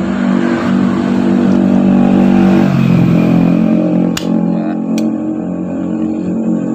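A vehicle engine running steadily, its pitch dropping a little about three seconds in. Two sharp clicks about four and five seconds in.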